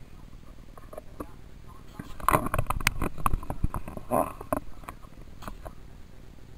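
Handling noise: a flurry of knocks, clicks and rubbing on the camera as it is shifted, loudest from about two to four and a half seconds in, with a few lighter ticks after.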